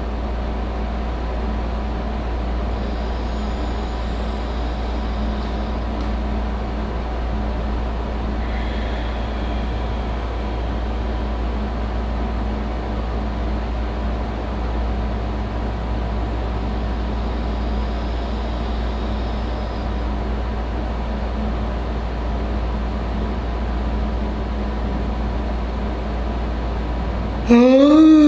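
A steady low background hum. Near the end a man begins a loud yawn: his voice rises and then falls in pitch.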